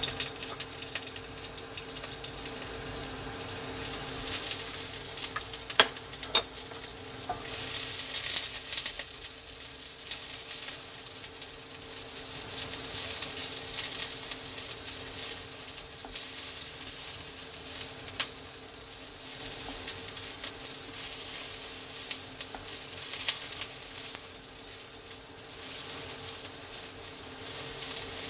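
Chopped shallots sizzling in a little hot oil in a nonstick wok, with a plastic spatula stirring and scraping them around the pan and a few sharp taps. A steady low hum runs underneath.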